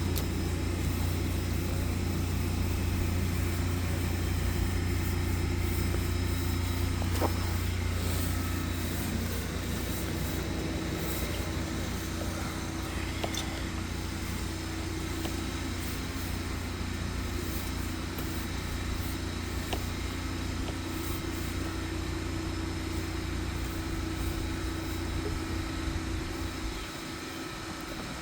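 Engine-driven sewer jetter, a rig built from big pressure washers, running steadily with a strong low drone while it jets a clogged sewer line at 3,000–4,000 PSI. The low drone drops away near the end.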